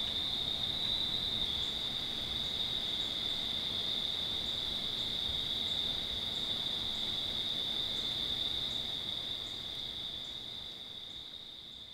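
A steady chorus of crickets trilling on one unbroken high pitch, fading out over the last few seconds.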